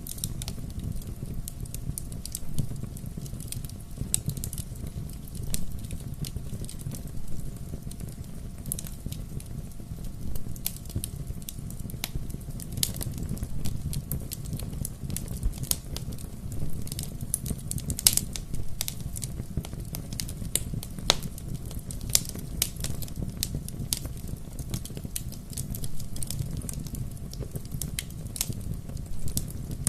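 Wood fire burning, with a steady low rumble of flames and frequent irregular sharp crackles and pops, the loudest pop about halfway through.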